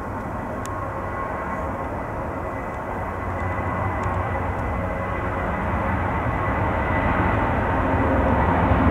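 Jet engines of a Wizz Air Airbus A321 rolling down the runway: a steady rumble with a thin high whine, growing louder over the second half.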